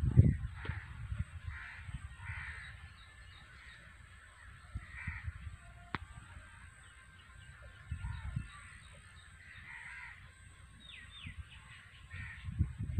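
Crows cawing repeatedly in short calls, with a few quick bird chirps near the end. Bursts of low rumble from wind or handling on the microphone come right at the start and again just before the end.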